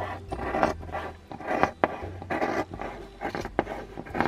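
Fabric scissors cutting through folded layers of fabric: a run of short snipping cuts, about two a second.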